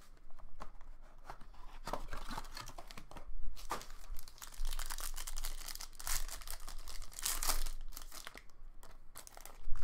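A Topps Inception baseball card pack's wrapper crinkling and being torn open by hand, in several short, irregular spells of rustling.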